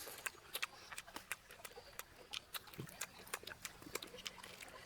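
Quiet, irregular smacking and clicking of someone chewing food with an open mouth.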